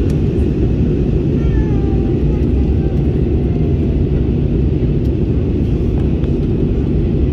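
Steady cabin rumble of an Airbus A320-family jet airliner in descent, heard from a window seat over the wing: engine and airflow noise that stays even and low throughout.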